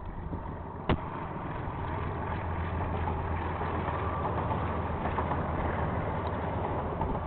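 Two KiwiRail diesel locomotives hauling a freight train past, a low engine drone and rumble that builds about two seconds in and holds steady. A single sharp click comes about a second in.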